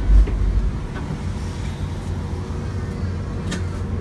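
Grenoble line E tram running, heard from inside the car: a steady low rumble, loudest in the first second, with a few light clicks about three and a half seconds in.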